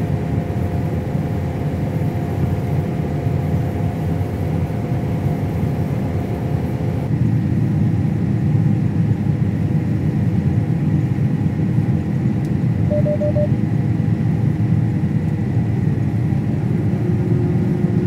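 John Deere combine harvester running while it cuts wheat, heard from inside the cab: a steady engine and machinery rumble with a low hum, growing a little louder and changing tone about seven seconds in. A short run of small beeps sounds about thirteen seconds in.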